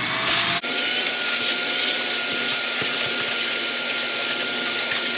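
Wet/dry shop vacuum running steadily, a rushing whine as its hose sucks up metal drill shavings. Just under a second in, the pitch of the whine shifts suddenly, then holds steady.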